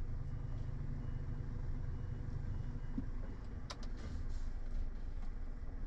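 Articulated tipper lorry's engine running steadily at low revs as the truck creeps forward to shunt round. There are a couple of short clicks about three and a half seconds in.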